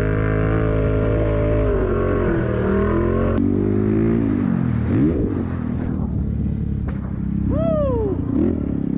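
Off-road vehicle engines running hard, pitch steady and then dropping. After an abrupt cut a few seconds in, several sharp revs rise and fall.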